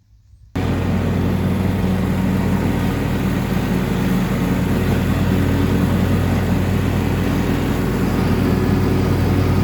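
John Deere X350 riding mower's engine running at a steady speed while mowing tall grass, starting abruptly about half a second in.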